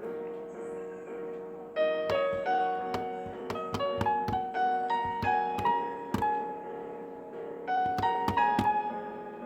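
Piano melody played slowly note by note over a held lower note, with a short pause about two-thirds of the way through before the notes resume.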